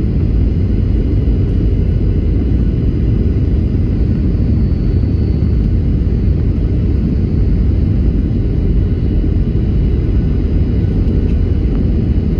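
Airliner cabin noise during landing: a steady, loud, low rumble of jet engines and airflow, with faint steady whines above it.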